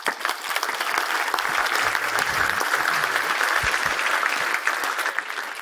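Audience applauding with many hands clapping at once. It starts abruptly and tapers off near the end.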